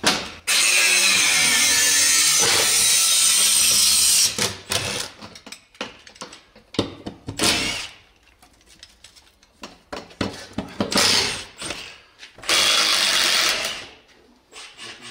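Milwaukee FUEL brushless cordless impact wrench hammering on bolts under a car: one long burst of about four seconds, then several shorter bursts.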